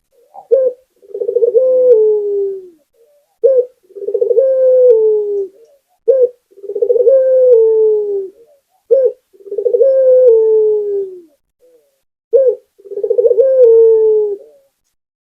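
Puter (Barbary dove) cooing: a short note followed by a longer rolling coo that slides down in pitch, repeated five times about every three seconds.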